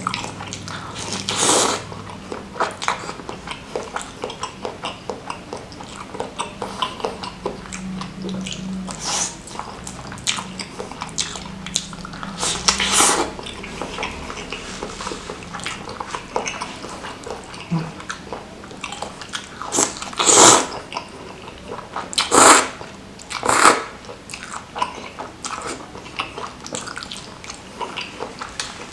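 Close-miked wet chewing of beef meatballs and rice vermicelli in thick spicy sauce, with many small clicking mouth sounds. A few louder, hissy mouth sounds stand out: one near the start, one about halfway, and three close together about two-thirds through.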